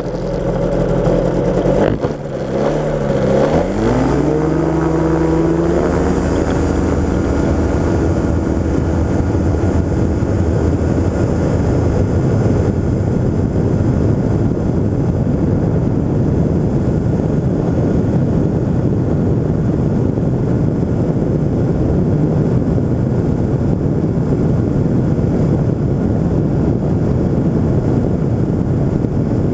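Rotax 582 two-stroke engine of a Pegasus Quantum microlight opening up to full power for takeoff, its pitch rising sharply a few seconds in. It then runs steadily at full power through the takeoff run and climb, mixed with a rush of wind.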